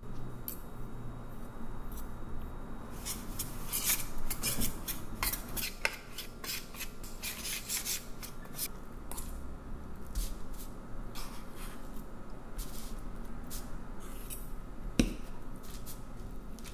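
A wire whisk scraping and ticking against a stainless steel tray as it stirs dry black sesame powder and ground flaxseed together, in quick uneven strokes. A single sharp knock comes near the end.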